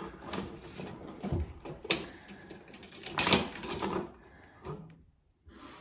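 A tape measure being pulled out and handled while measuring: scattered clicks, a sharp click about two seconds in, and a louder rattle a little after three seconds.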